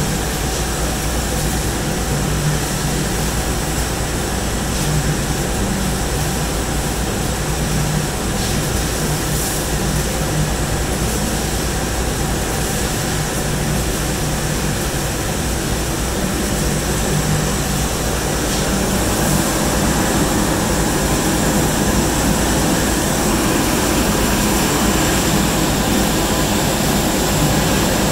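Sheet-metal sanding machine running, its rotary abrasive brushes spinning over a part on the conveyor: a steady mechanical whir and rushing hiss over a low hum. It gets a little louder about two-thirds of the way through.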